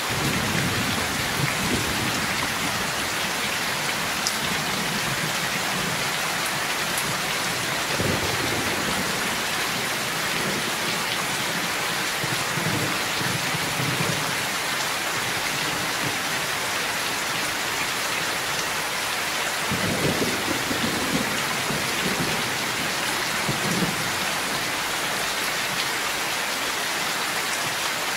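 Heavy rain pouring steadily, with low rolling rumbles of thunder underneath, the strongest swelling about eight seconds in and again about twenty seconds in.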